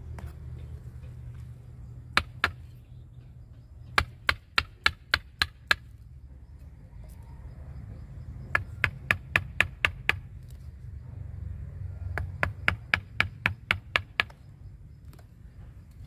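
Mallet tapping a wood-handled chisel to cut back the roots at the base of a Wrightia religiosa bonsai trunk. There are two single strikes, then three runs of sharp knocks at about four a second, with short pauses between.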